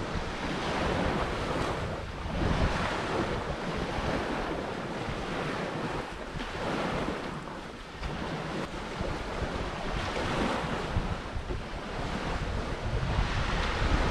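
Sea surf washing onto the shore, swelling and fading every few seconds, with wind buffeting the microphone.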